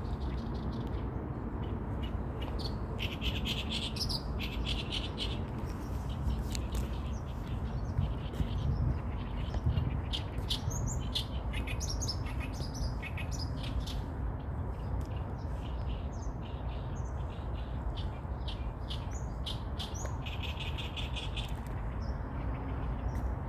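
Wild birds calling repeatedly in quick short chirps, with a few longer buzzy calls, over a steady low rumble.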